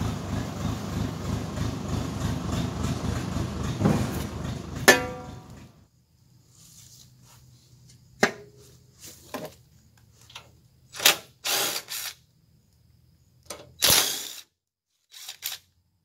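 A backhoe engine running with a steady rhythmic chug, ending in a loud metallic clank about five seconds in. After that, several short runs of a cordless drill, with a faint hum between them.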